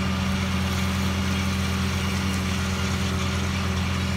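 Ford tractor running steadily under load, driving a Hesston 1000-series disc mower that is cutting hay: an even, unbroken drone.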